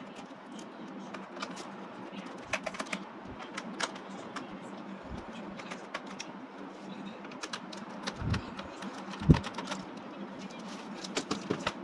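Small scattered clicks and taps of a screwdriver working the screws out of a laptop's bottom case, with a louder knock about nine seconds in.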